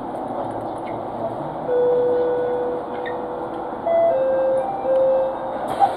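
An electronic chime plays a short tune of about four notes, the first one long, over the steady rumble inside a train car. A hiss starts just before the end.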